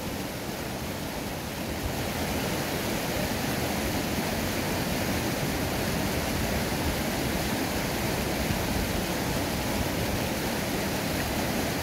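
Fast, shallow mountain river rushing over boulders and small rapids: a steady, even noise of water that grows a little louder about two seconds in.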